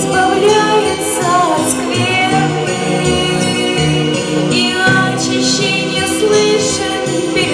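Instrumental music of a song's backing track, with chiming bells over sustained notes.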